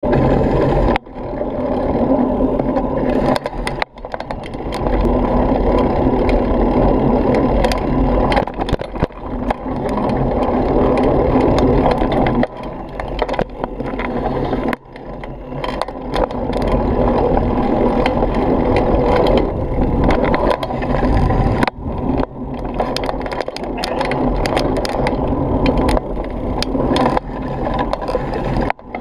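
Mountain bike rolling over a rough dirt trail, heard from a camera mounted on the bike: a steady rumble of tyres on dirt, broken by frequent knocks and rattles as the bike jolts over bumps.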